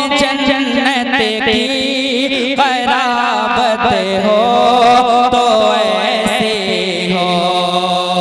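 A solo voice singing a naat, Islamic devotional poetry, in long ornamented lines that waver and glide in pitch over a steady low drone.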